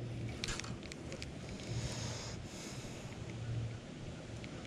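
Wind buffeting the microphone as a steady low rumble, with a few light clicks and rustles from handling a spinning rod and reel in a kayak.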